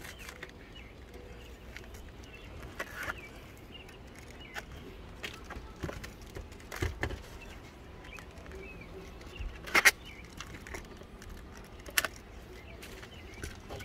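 Release backing rustling and crackling as it is peeled off a roll of self-adhesive flashing tape, in scattered short crinkles and taps, with a sharper, louder crackle about ten seconds in.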